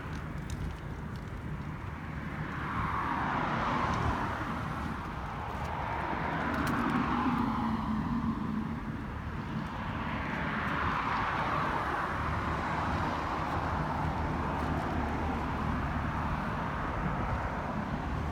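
Outdoor traffic ambience: steady background road noise, with vehicles swelling up and fading away as they pass, twice.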